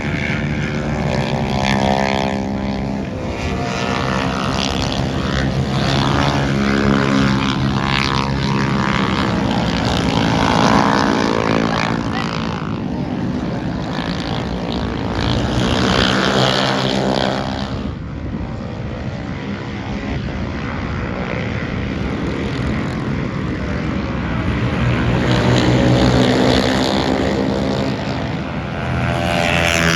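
Lightweight-class racing motorcycles running at speed, engine pitch rising and falling repeatedly as bikes pass and change gear, with several louder swells as they go by.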